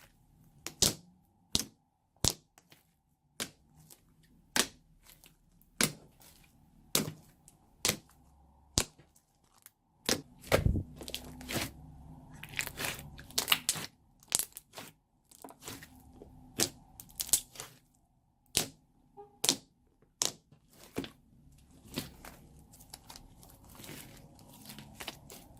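Slime being pressed and squeezed, giving off sharp popping clicks about once a second. From about ten seconds in, a softer continuous squishing handling noise runs under the pops.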